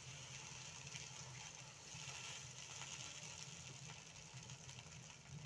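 Water poured into a hot cast-iron kazan of fried meat, onions and carrots (the zirvak for plov), hissing and bubbling as it heats up, over a low steady hum.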